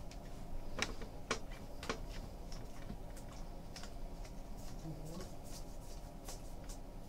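A stack of glossy 2015 Bowman Draft baseball cards being flipped through by hand: light, irregular clicks and flicks as the card edges slide off one another, a few sharper ones in the first two seconds.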